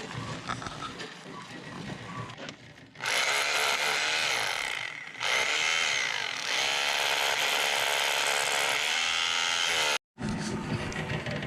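Hammer drill on its hammer setting, pressed against a concrete block wall to vibrate freshly poured concrete down into the block cells and settle it. It starts suddenly about three seconds in, stops briefly, starts again and cuts off about ten seconds in.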